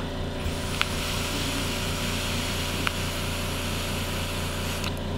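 A three-post dual-coil Igo-W rebuildable dripping atomizer on a mechanical mod being fired during one long draw. Its wicked coils sizzle and air rushes through the drilled-out air hole in a steady hiss that starts about half a second in and cuts off sharply near the end, with a couple of faint pops.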